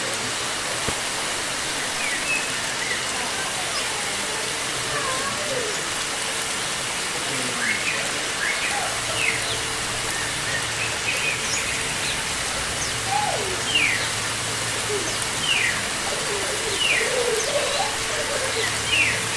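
Small birds chirping in short, falling notes over a steady hiss of running water. A low steady hum joins about halfway through.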